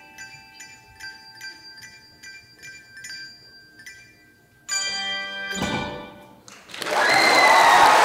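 Handbell choir ringing a quiet run of single bell strokes, then a loud full chord of many handbells struck together about halfway through, which rings and is then stopped. Audience applause breaks out near the end.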